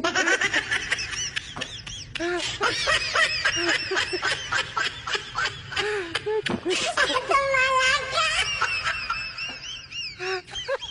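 High-pitched laughing voice, a rapid run of chirpy, rising-and-falling giggles with one longer held note a little past the middle.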